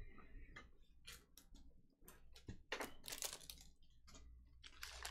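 Faint, scattered clicks and short rustles of trading cards and pack wrappers being handled.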